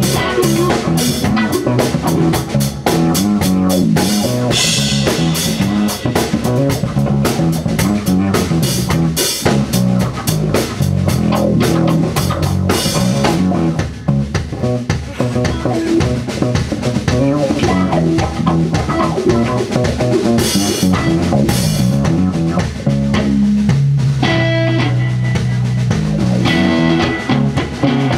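Loud live rock band playing an instrumental stretch without singing: electric guitar, electric bass and a drum kit with busy cymbals. The cymbals ease off for a few seconds near the middle, then come back.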